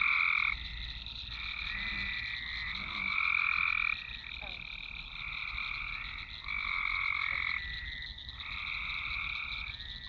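Frogs chorusing: trilled calls about a second long follow one after another, some louder than others, over a steady high-pitched hum.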